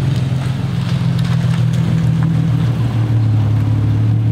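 Infiniti G37's V6 running through a resonator-deleted exhaust as the car creeps at low speed, a steady low drone whose note settles a little about halfway through.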